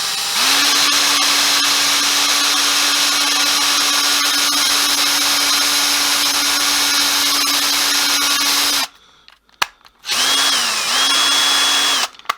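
Small electric drill drilling out the rivet of an old Hornby tension-lock coupling with a bigger bit. It steps up in speed just after the start, runs steadily, and stops about nine seconds in. A click follows, then it runs again with a brief dip in pitch and stops near the end.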